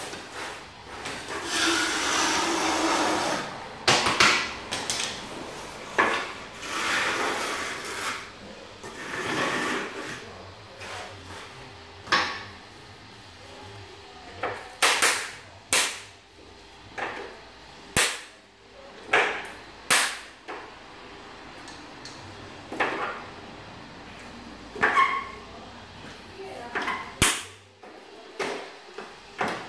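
Scraping at a tile edge, then a dozen or so sharp plastic clicks as levelling wedges are pushed into the clips of a tile-levelling system with levelling pliers.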